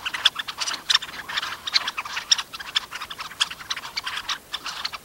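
A flock of red-necked phalaropes calling: many short, sharp notes overlapping in a rapid, irregular chatter.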